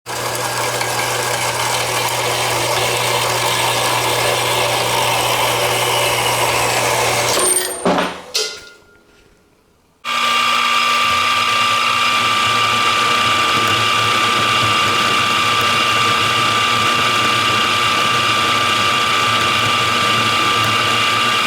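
A metalworking power tool running steadily, shutting off with a few clicks about eight seconds in. A couple of seconds later a machine starts again with a steady high whine.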